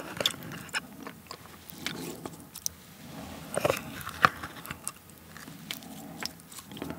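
A spoon scooping thick, wet seasoned cockle sauce out of a plastic jar and dropping it onto cooked rice: soft squelches with scattered light clicks, close-miked.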